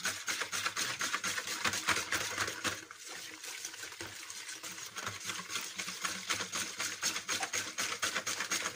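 Wire whisk beating warm milk and bread yeast in a plastic bowl: fast, even strokes of liquid sloshing against the bowl.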